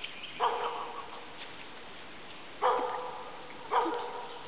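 Lab–Border collie mix puppy barking three times: short, high-pitched barks, the first about half a second in and the other two about a second apart near the end.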